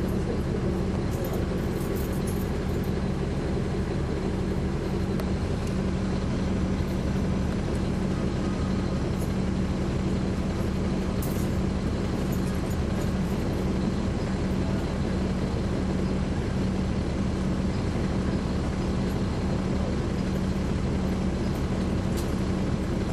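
Caterpillar C13 ACERT diesel engine of a 2009 NABI 416.15 transit bus, heard from aboard, running at a steady pace. It makes an even drone with a strong low hum that neither rises nor falls.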